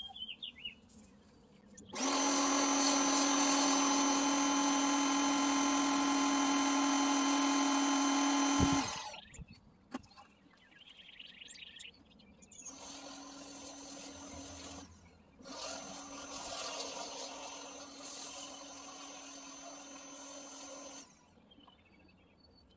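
Pressure washer running and spraying through a Chemical Guys Big Mouth Max Release foam cannon, in three trigger bursts: one loud burst of about seven seconds starting about two seconds in, then two shorter, quieter bursts. Each burst pairs a steady motor hum with spray hiss, and each starts and stops abruptly.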